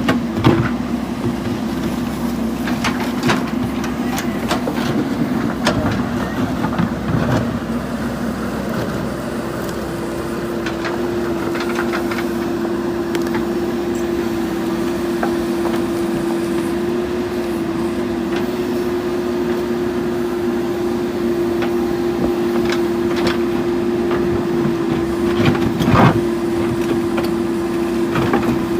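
JCB 3DX backhoe loader's diesel engine running under work, its note stepping up to a higher steady speed about nine seconds in. Occasional short metallic clanks, the loudest near the end.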